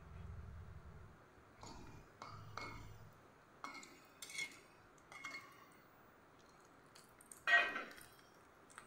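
Metal spatula scraping and clinking against the inside of a kadai as it stirs: several short strokes, then a louder clank near the end.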